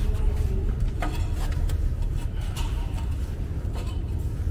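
A steady low rumble with a few faint knocks or steps.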